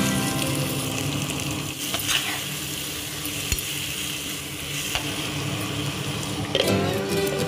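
Raw Totapuri mango pieces sizzling in onion-tomato masala in a clay pot as they are stirred, with a few sharp knocks of the stirring utensil against the pot. Guitar music comes back in near the end.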